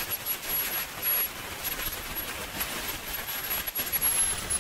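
Swiwin 300 model jet turbine running, a steady rushing jet noise with a thin high-pitched whine; near the end the whine starts to drop in pitch.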